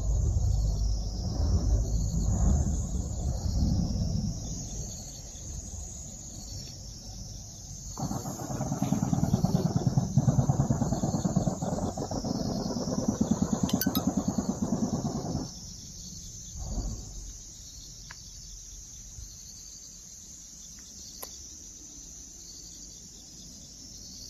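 Armed military helicopter heard from the ground, its rotor chop and engine drone swelling in two stretches and then stopping abruptly, with a short low thump a little later. Insects chirr steadily underneath.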